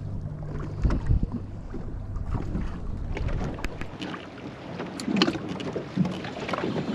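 Ambience aboard a small fishing boat on calm water: wind on the microphone and water moving at the hull. A low hum fades out after about four seconds, with a couple of low knocks about a second in and scattered small clicks.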